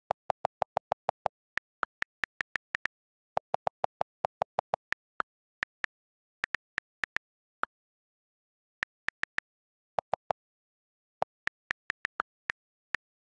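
iPhone on-screen keyboard clicks from typing: short, sharp ticks at an irregular typing pace. There are runs of deeper, quicker clicks from the delete key erasing text in the first second, around three and a half to five seconds in, and again around ten seconds.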